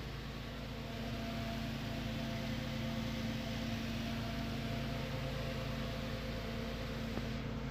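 Hino Euro 10-wheeler dump truck's diesel engine idling, heard from inside the cab as a steady low hum.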